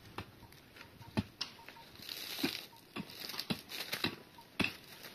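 Irregular light knocks and clicks, about two or three a second, with a short crinkly rustle around two to three seconds in.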